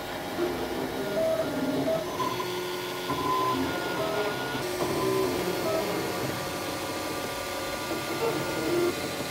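Ultimaker 2 3D printer printing, its stepper motors whining in short tones that jump from pitch to pitch as the print head changes speed and direction while it lays down the first outline on the bed.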